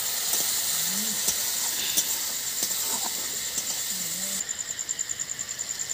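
Spice paste sizzling in hot oil in an iron wok over a wood fire, a steady hiss with a few light clicks from the stirring spatula. The hiss thins out about four seconds in.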